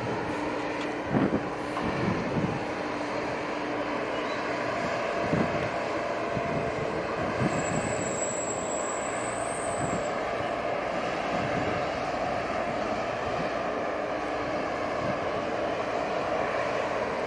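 Steady drone of a ship's engine, with a few low thumps in the first seconds and a brief thin high whistle near the middle.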